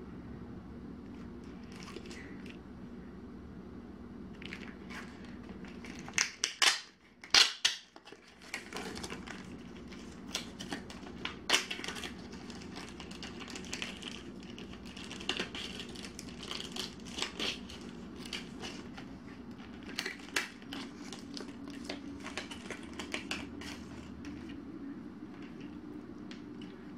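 Paper envelope and plastic wrapping crinkling and rustling as a tightly packed mailer is torn open and a sticker packet unwrapped, with irregular sharper crackles, loudest around six to eight seconds in.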